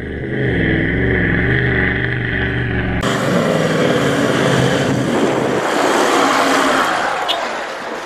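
Toyota LandCruiser 79 Series V8 turbo diesel engine working on a sand track, its revs rising and falling. About three seconds in, the sound changes abruptly to a rougher, noisier run, which eases off near the end.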